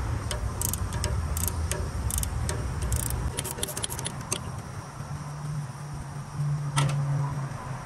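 Ratchet wrench clicking as it backs off the 13 mm ground-cable nut on the starter: a run of irregular clicks that come faster toward the end over the first four seconds or so, then one louder click near the end, over a low steady hum.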